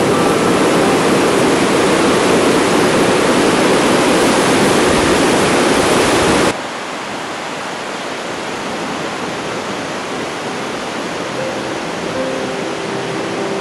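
Rushing water of a river pouring over a weir, a loud steady rush that cuts off abruptly about six and a half seconds in, leaving a quieter steady hiss. Faint music notes come in near the end.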